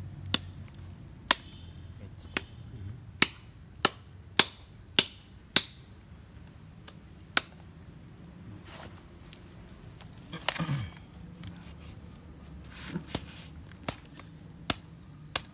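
Machete chopping through the meat and bone of a singed dog carcass: about a dozen sharp chops, coming in a quick run between about three and six seconds in, then more spaced out. Crickets chirp steadily behind.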